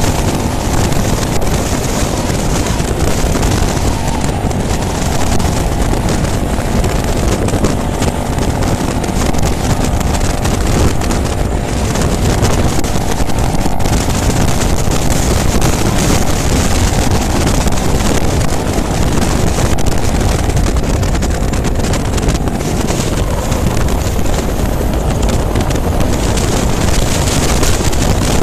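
Cruiser motorcycle riding at a steady cruise, its engine running under heavy wind noise buffeting the rider's microphone.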